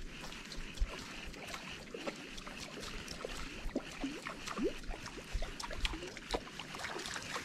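A small fishing boat on calm lake water, with water lapping at the hull and scattered light clicks and knocks. A few short squeaky glides come around the middle.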